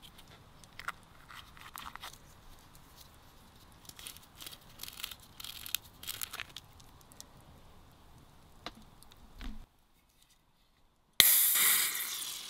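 A can of beer cracked open about eleven seconds in: a sudden snap and a loud fizzing hiss of escaping gas that slowly dies away, the loudest thing here. Before it, small clicks and rustling as seasoning pots are opened and shaken over a bowl of flour.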